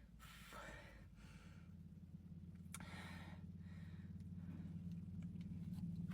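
A woman breathing heavily between gulps of soda: two sighing breaths, one at the start and one about three seconds in. Under them is a low hum that grows steadily louder.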